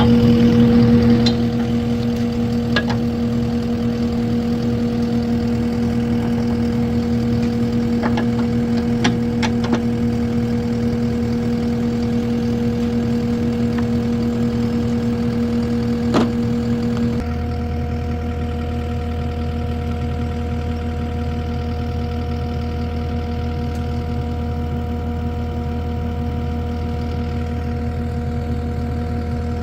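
Engine idling steadily, with a few faint clicks. About 17 seconds in its tone shifts and it gets slightly quieter.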